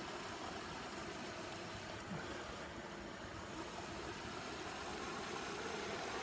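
Shallow rocky stream running steadily over riffles and stones, with a low rumble underneath.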